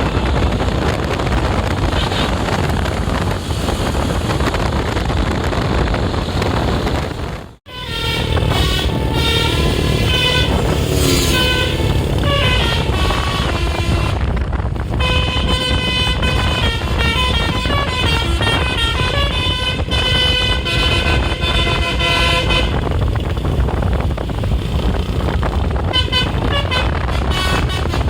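Tour bus's basuri telolet horn playing a tune of stepped multi-note tones over the rumble of the bus engine. For the first third only engine and traffic noise is heard, then a brief gap of silence before the horn tune begins.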